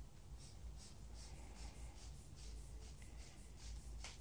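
Hand inflation bulb of a blood pressure cuff being squeezed over and over, giving faint, soft hissing puffs of air at about two to three a second as the cuff is pumped up.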